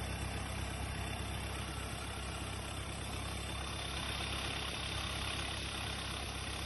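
Off-road 4x4 vehicle's engine running steadily at low revs, with no sharp changes.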